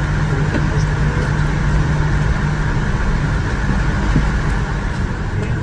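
Steady cabin noise aboard a Boeing 787-9 before departure: a constant air-conditioning rush with a low steady hum and a few faint ticks.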